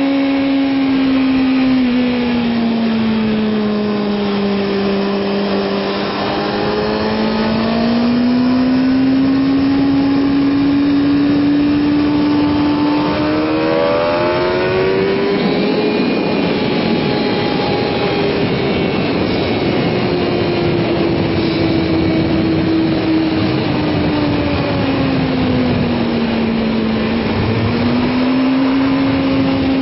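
Kawasaki ZX-6R's inline-four sportbike engine running hard at high revs on track, its note sinking and climbing again with the throttle. It climbs steeply about fourteen seconds in as the bike accelerates, over a rushing noise that is strongest from then on.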